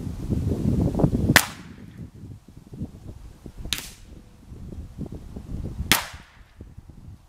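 Three shots from a Ruger 10/22 semi-automatic .22LR rifle, spaced a little over two seconds apart, each a sharp crack with a short tail. The first shot is the loudest, with a low rumble under it.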